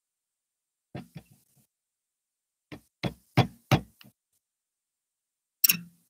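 A few short, sharp knocks: two about a second in, a quick run of four around the middle, and a loud single one just before the end.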